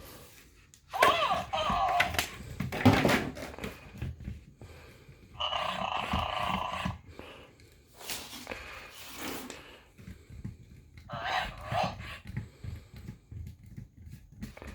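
Hatchin' Yoshi electronic toy playing short recorded Yoshi voice sounds through its small speaker, three times, between knocks and rustles of the toy being handled.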